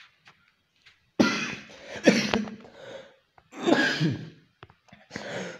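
A person coughing: three loud, harsh bursts, the first starting about a second in.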